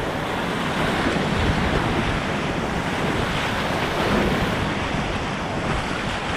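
Whitewater rapids rushing and splashing around a kayak as it paddles through, heard close up on an action camera, with wind buffeting the microphone.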